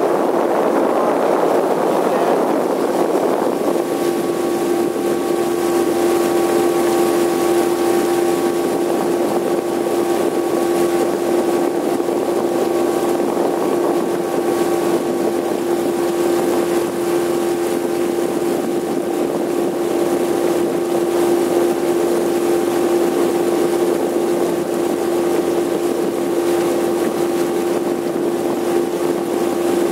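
Boat's outboard motor running at a steady cruising speed: a constant hum with one strong steady tone over a rush of noise, which is louder for the first couple of seconds.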